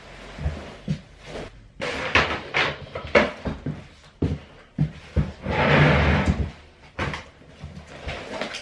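Rustling and short knocks of a padded coat and a large tote bag being handled on a counter, with a longer rustle about six seconds in.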